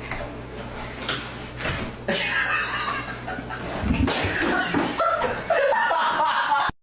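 A person laughing, with a low steady hum underneath in the first half; it cuts off suddenly near the end.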